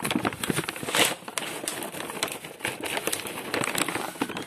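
Dry dog kibble rattling in a hard plastic slow-feeder bowl as it is handled: a dense run of irregular clicks, with a louder knock about a second in.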